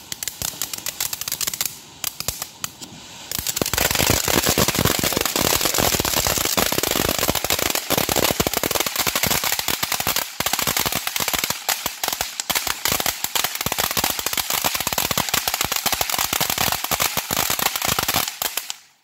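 Ground fireworks fountains going off together with a dense, rapid crackling. About three and a half seconds in it builds to a heavier, louder rattle, and it cuts off abruptly near the end.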